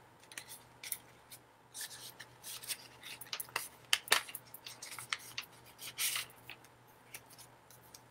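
Hands handling a beaded quartz necklace and its description tag: irregular light clicks and rustles, loudest about four and six seconds in.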